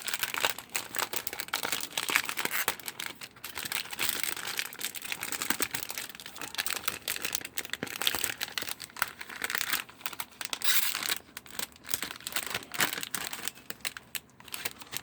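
Toy packaging being opened by hand: irregular crinkling, rustling and tearing, with many small crackles and clicks that come in bursts and pause briefly now and then.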